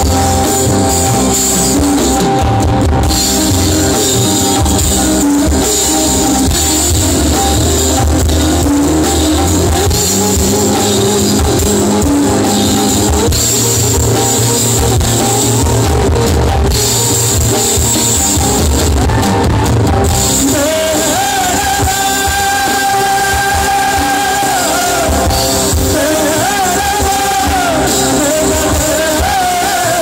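Live fusion-rock band playing loud, with a drum kit, bass and electric guitars, hand percussion and singing. A wavering melody line rises above the band in the last third.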